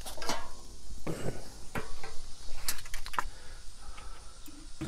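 Cast iron cooking grate being set down into an Akorn kamado grill: about five sharp metal clanks and clinks spread over a few seconds.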